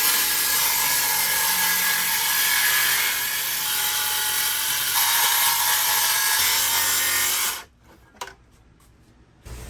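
Power saw cutting the sink opening in a countertop, running steadily for about seven and a half seconds, then cutting off suddenly. A single click follows in the quiet.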